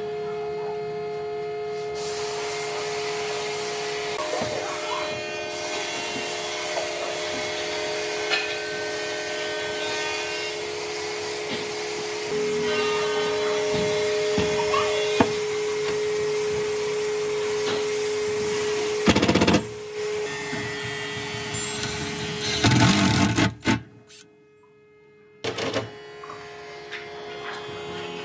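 Electric woodworking power tool running with a steady motor whine and a noisy hiss, with two brief louder surges near the end.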